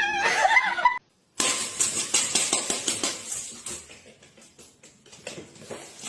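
A cat meowing, a gliding call lasting about a second. After a short break comes a burst of rapid clattering clicks and rustling that slowly fades.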